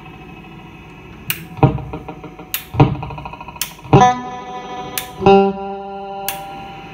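Electric guitar played through a Binson Echorec II magnetic-drum echo into a Fender Pro Reverb amp: single picked notes about every second and a quarter, each ringing on through the echo.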